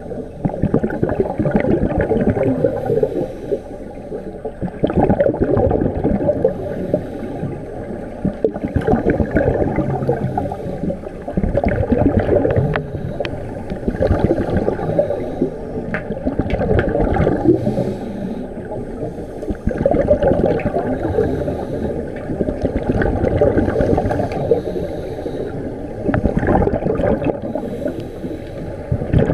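Scuba divers' regulators releasing exhaled bubbles, heard underwater as muffled gurgling that swells in surges about every three to four seconds, in time with breathing.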